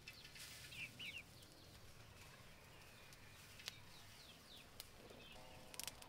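Near silence, with faint bird chirps, short downward calls in a few little groups, and a couple of soft clicks.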